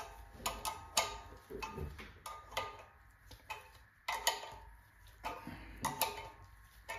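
Sharp metallic clicks and clinks, about two a second and unevenly spaced, each ringing briefly, as an adjustable wrench is worked on the forcing screw of a bearing-separator puller. The puller is drawing the crank timing gear off the crankshaft snout of an LS V8.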